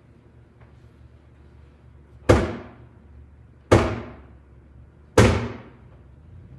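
Three loud, evenly spaced blows struck about a second and a half apart, each a sharp crack that rings out and fades in the reverberant church.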